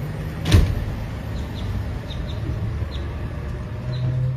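A glass entrance door shuts with one sharp knock about half a second in, over a steady low hum. A few faint, short high chirps come and go.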